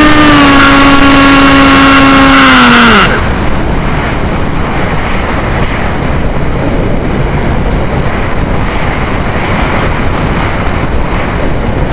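The AXN RC plane's electric motor and propeller whining steadily at high pitch, then winding down and cutting out about three seconds in as the throttle is shut off. After that only wind rushing over the airframe and microphone while the plane glides.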